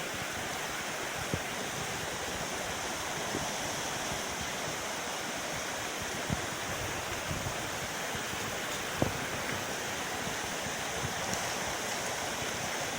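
Mountain stream water rushing steadily over rocks, with a few faint light knocks.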